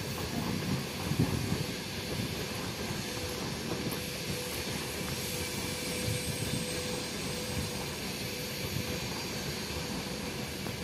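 Wind buffeting the microphone over a steady distant rumble, with a faint steady hum.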